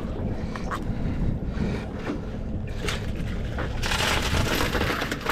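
Wind buffeting the microphone on a small boat on open water, a steady low rumble with a few short knocks. A louder rushing hiss comes in for about a second near the end.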